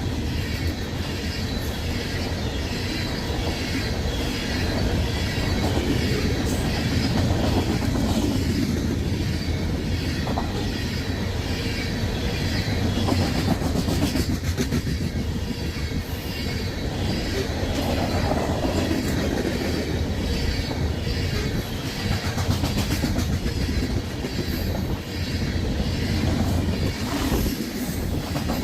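Freight train of what look like loaded coal cars rolling steadily past close by, steel wheels clicking over the rail joints under a continuous low rumble.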